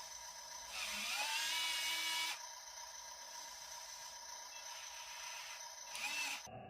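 Small electric motor of a 1:50 scale remote-control construction model whining, with a louder burst about a second in whose pitch rises and wavers, and a shorter burst near the end.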